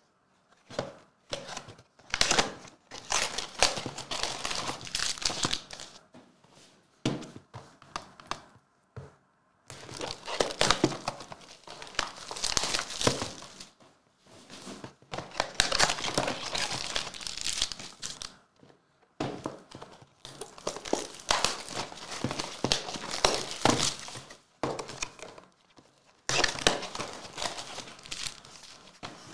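Foil wrappers of 2020-21 Revolution basketball card packs crinkling and tearing as the packs are handled and opened, in about six stretches of a few seconds each with short pauses between.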